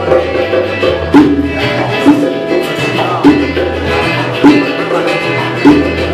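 Live band playing a steady instrumental groove on electric guitar, bass guitar and hand drums, with a strong accent about once a second.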